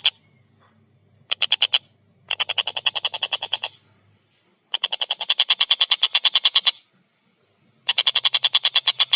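A tengkek buto kingfisher giving its rapid chattering call: fast trains of harsh, even notes at about a dozen a second, in four bursts of half a second to two seconds with short pauses between.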